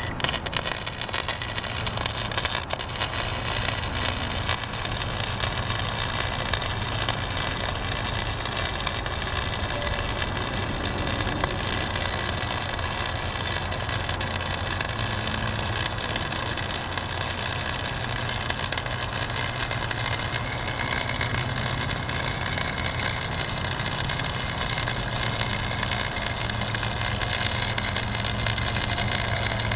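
Harbor Freight 90-amp flux-core wire welder running a continuous arc on mild steel pipe, electrode negative: a dense, steady crackle over the welder's hum, starting abruptly at the outset and going on without a break.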